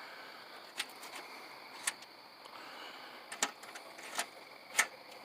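About six sharp clicks and light knocks spread over a few seconds, the last one the loudest, from handling a truck-bed toolbox's lid and hardware.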